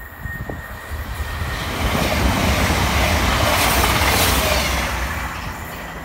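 A CrossCountry Voyager diesel multiple unit passing at speed without stopping: the rush of wheels on rail and underfloor diesel engines builds over the first two seconds, is loudest mid-way, then fades.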